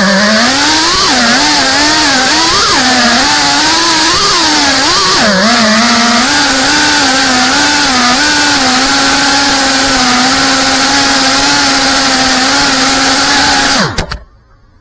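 3.5-inch FPV quadcopter's brushless motors and propellers whining, the pitch rising and falling with the throttle for the first several seconds, then holding level, before cutting off suddenly near the end.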